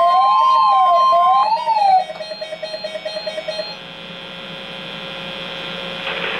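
NOAA Weather Radio 1050 Hz warning alarm tone, a steady high tone that cuts off about a second and a half in, over a weather radio receiver's warbling alert siren sweeping up and down about once a second. The siren then breaks into rapid beeping until near four seconds in, leaving a faint radio hiss.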